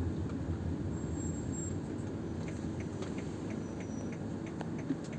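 Car running, heard from inside the cabin: a steady low engine and road hum. From about halfway in there are faint, short, repeated ticks.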